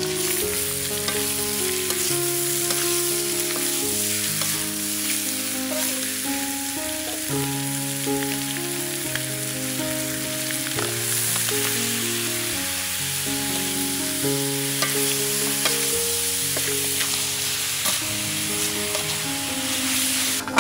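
Chicken pieces sizzling in a hot wok with fried garlic, the sizzle starting as the chicken goes in, with occasional metal spatula scrapes as it is stirred. A background melody plays underneath.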